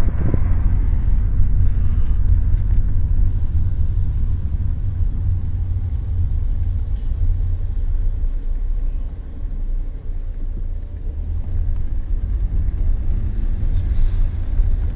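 A loud, steady low rumble that wavers in strength and has little higher sound above it.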